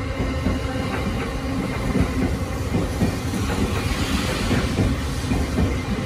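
JR East E231-800 series electric commuter train running past as it pulls into a station: a steady rumble of wheels on rail with many quick clicks as the wheels cross rail joints.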